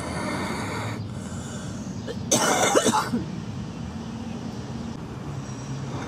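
A girl coughing: a noisy breath or short cough at the start, then one loud cough burst a little over two seconds in that lasts under a second.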